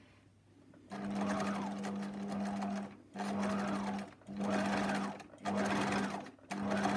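Domestic electric sewing machine stitching straight along a fabric edge. It starts about a second in with one run of about two seconds, then keeps going in short runs of about a second each with brief stops between them.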